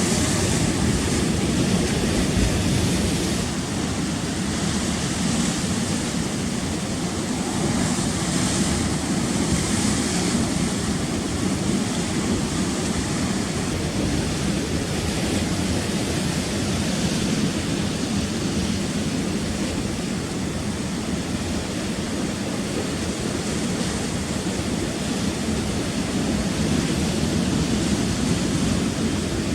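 Choppy sea surf washing continuously over rocks, with wind buffeting the microphone. A steady rush with a few brief swells.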